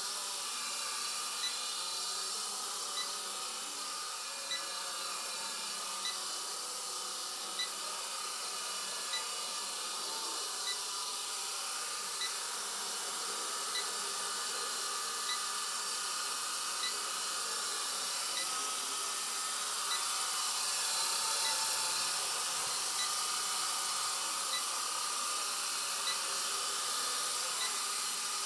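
Blade SR 120 micro RC helicopter in flight: a steady whine of its electric motors with rotor hiss, swelling slightly about two-thirds of the way through. A short faint beep repeats about every second and a half.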